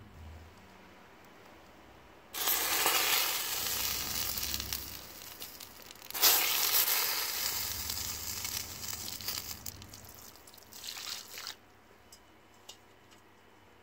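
Water hitting a burning plastic stress ball, hissing and sizzling in two loud bursts a few seconds apart, each starting suddenly and fading away, with a shorter hiss near the end as the fire goes out.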